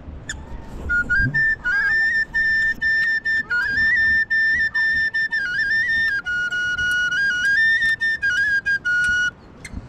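Flute music: a melody of held notes moving up and down in small steps, starting about a second in and breaking off near the end.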